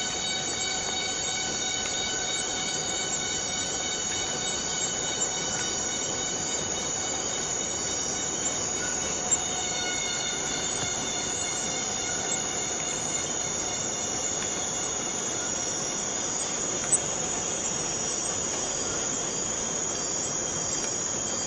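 Chorus of forest cicadas: a dense, steady buzzing with a whining tone and its overtones that fades in the middle and comes back strongly near the end.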